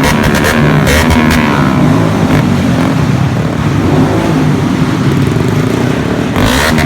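Vehicle engines revving loudly, the pitch climbing and falling with the throttle, with a few short crackles. Near the end a louder, harsher sound cuts in suddenly.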